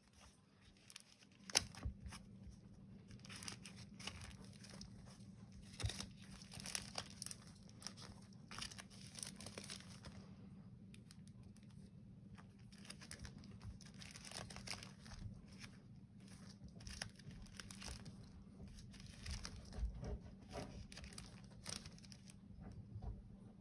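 Sticker sheets rustling and stickers being peeled off their backing paper, in short irregular crinkly bursts with small clicks.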